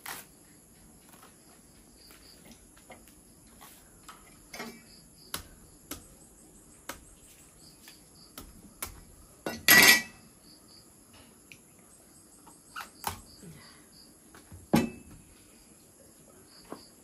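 Dishes and cutlery clinking and knocking in scattered strokes, with a loud clatter about ten seconds in and another near fifteen seconds.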